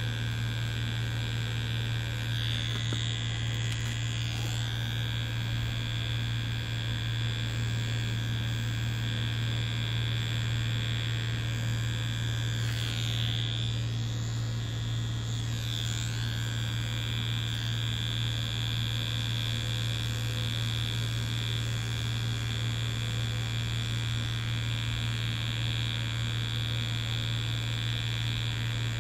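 Tattoo machine buzzing steadily: a constant low hum with a higher whine over it. The whine wavers briefly a few seconds in and again around the middle.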